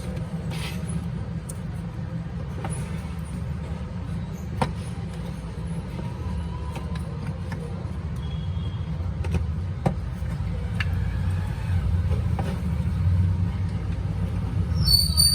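Steady low rumble of background road traffic, with a few sharp clicks and a short high-pitched tone near the end.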